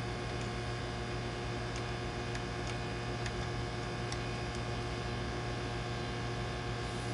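Steady low electrical hum, with a few faint light ticks scattered through it.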